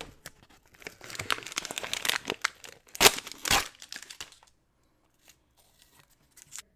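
Brown masking paper and blue painter's tape being peeled off a painted diecast model car body, crinkling and tearing, loudest about three seconds in. It stops after about four seconds, leaving only a few faint ticks.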